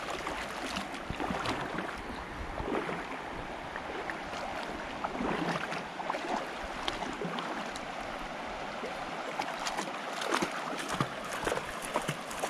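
A dog and a person wading through a shallow, stony river: irregular splashes and sloshes over the steady rush of flowing water.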